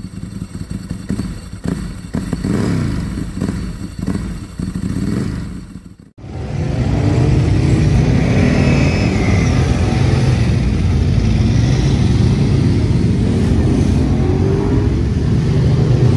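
For the first six seconds, motorcycle engines revving, rising and falling in pitch. From about six seconds in, a Ducati 998 RS superbike's 998 cc V-twin runs steadily and loudly after being started on a roller starter.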